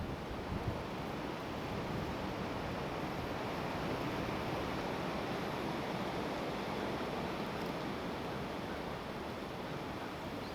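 Strong gusting wind: a steady rushing that swells a little and eases off, with a couple of low wind bumps on the microphone near the start.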